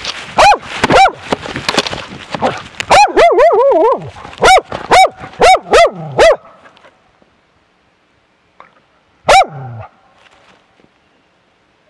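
Bear-hunting dogs baying at a bear: loud, sharp barks very close to the harness microphone, about two a second, with a second, lower-pitched dog overlapping in a quick flurry around three seconds in. The barking stops a little past six seconds, and one last bark comes near the end.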